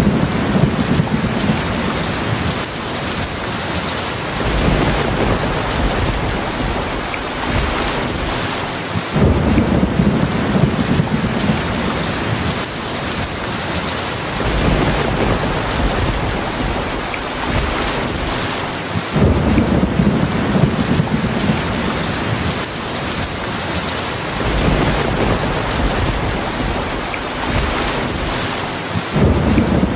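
Steady heavy rain, with low thunder rumbling in again roughly every five seconds.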